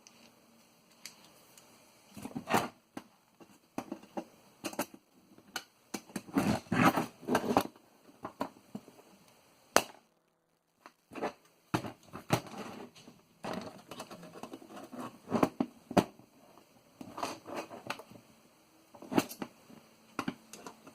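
Irregular clicks, knocks and scraping of hands and a tool working at a floppy diskette drive's metal and plastic parts, trying to pry a stuck piece off, with a denser run of knocks a few seconds in. The sound cuts out completely for under a second near the middle.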